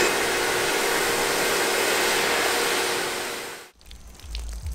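A handheld electric power tool runs steadily, a hiss with a faint motor whine. It eases off and cuts out abruptly a little over three and a half seconds in, leaving a much quieter low rumble.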